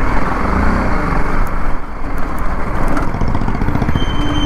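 BMW G 310 GS's single-cylinder engine running as the motorcycle is ridden, heard from the rider's camera. A short steady beep sounds near the end.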